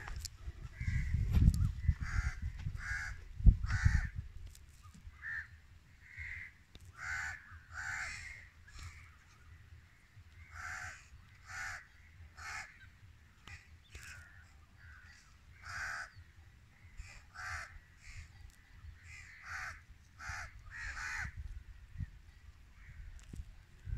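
Crows cawing over and over, many short calls from several birds, some overlapping. A low rumble on the microphone with two loud peaks in the first few seconds.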